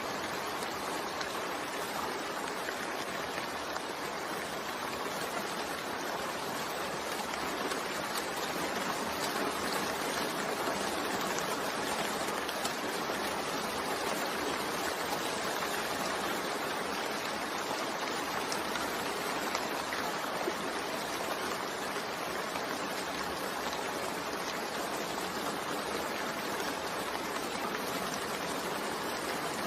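Steady rain falling, an even, unbroken hiss of water with no distinct drops or thunder standing out.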